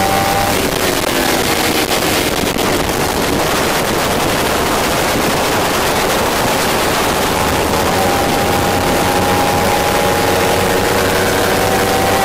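Kawasaki Ninja 300 parallel-twin race engine heard from on board, under heavy wind rush. The engine note falls as the bike slows into a corner, is mostly buried in wind noise through the turn, then comes back about two-thirds through and climbs steadily as the bike accelerates out onto the straight.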